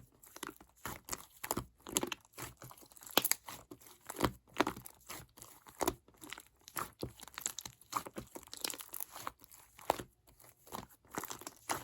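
Slime being squished, pressed and stretched by hand, giving irregular sticky clicks, pops and crackles several times a second.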